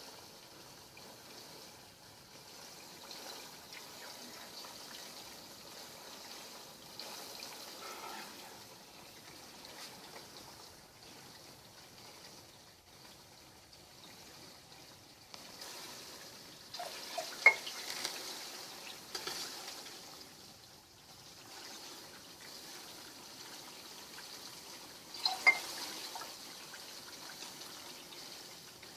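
Pork leaf lard being rendered: hot liquid fat making a quiet, steady liquid sound, broken by two sharp clinks, one a little past the middle and one near the end.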